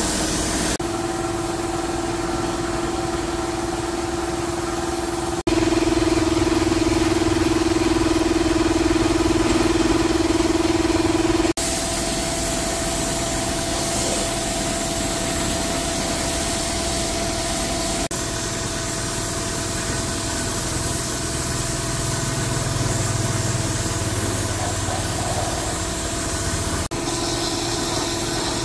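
A motor running steadily with a constant hum, in several back-to-back takes that each change its pitch and loudness slightly.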